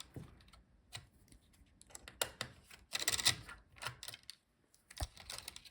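Light clicks, taps and scrapes of small parts being handled inside an opened laptop as the cover over its second SSD slot is taken off, with one sharper knock about five seconds in.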